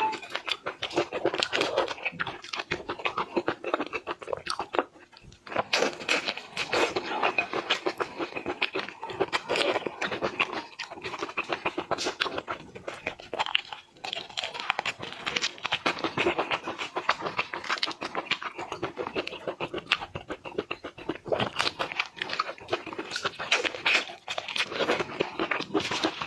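Close-miked eating of shellfish: crunching, chewing and tearing of shrimp or prawn shells and meat, a dense irregular crackle with a short lull about five seconds in.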